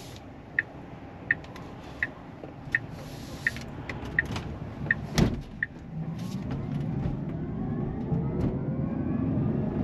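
Inside the cab of a Tesla Cybertruck: a turn-signal indicator ticks about once every 0.7 seconds for the first five seconds or so, with one thump about five seconds in. Then the electric drive whines, rising in pitch, over growing road noise as the truck accelerates.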